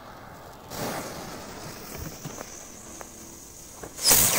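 Lit whistler firecracker on sand: its fuse hisses steadily with a faint high steady whistle, then about four seconds in it lets out a loud hissing rush for about half a second.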